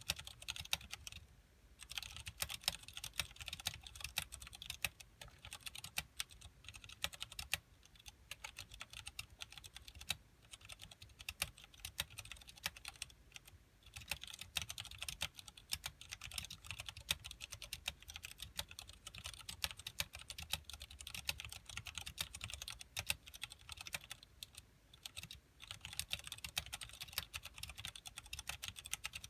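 Fast, continuous typing on a KBP v60 mechanical keyboard with Cherry MX Clear tactile switches and PBT keycaps in an acrylic case: dense key clicks and clacks, with a few brief pauses.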